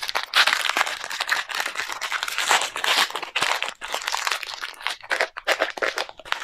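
Crinkling and tearing of a small Lemona vitamin C stick packet being pulled open by hand, with dense, irregular crackles.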